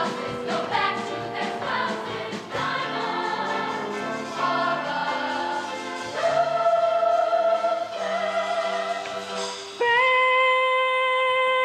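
Show choir singing a song in full voice; about ten seconds in, it lands on a single loud held note.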